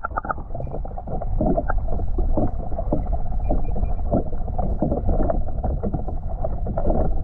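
Muffled underwater sound heard by a camera submerged in a swimming pool: water sloshing and bubbling with irregular knocks, the high end cut off. A few faint short beeps come through about halfway through.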